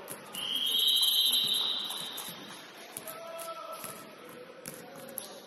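Referee's whistle, one long steady blast of about two seconds, starting just under half a second in.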